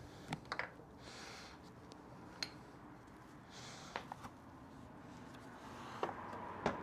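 A few light clicks and taps of small parts and tools being handled, spaced irregularly, with two soft breaths between them.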